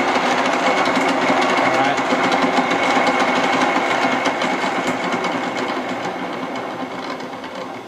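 Milling machine head running on a variable-frequency drive, a steady mechanical hum and gear noise with a thin high whine. About five seconds in it begins to wind down, fading to the end, as the speed is turned down fast enough that the drive faults out.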